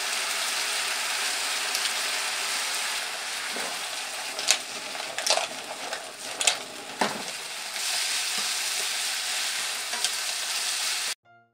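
Spaghetti alle vongole sizzling in a hot frying pan as it is stirred and tossed with chopsticks, with a few sharp clacks of clam shells and chopsticks against the pan midway.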